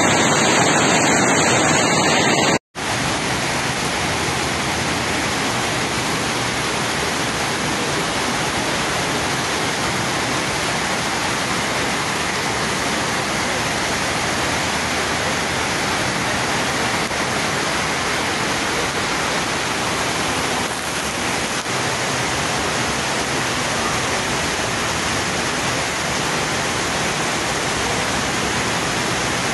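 Heavy rain pouring down in a steady, even rush, which begins after a sudden cut about three seconds in.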